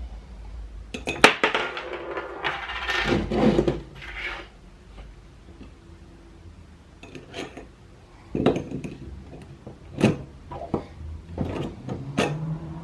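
Skateboard bearings and wheels being handled and pressed onto the truck axle: sharp metallic clicks and knocks, with a scraping rattle for a few seconds near the start and single clicks after that.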